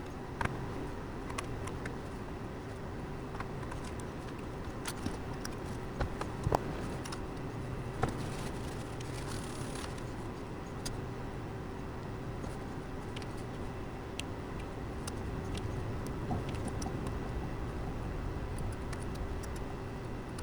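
Scattered light clicks, taps and small clatter of hardware being handled, over a steady background hum; a few sharper knocks come about six to eight seconds in.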